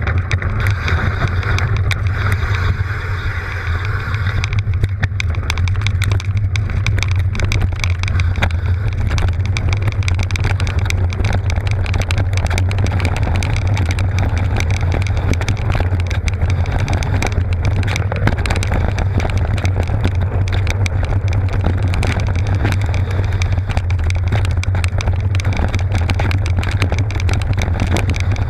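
Mountain bike rolling along a dry dirt and gravel trail, heard from a camera mounted on the bike: a steady low rumble with constant rattling clicks as the bike jolts over the rough ground.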